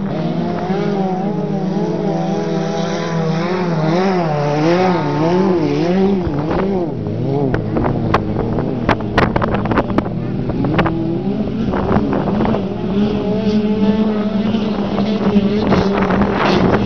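Several autocross cars' engines (touring class over 1600 cc) running at racing speed, their pitch repeatedly rising and falling as they rev and shift. A cluster of sharp clicks and knocks comes through in the middle.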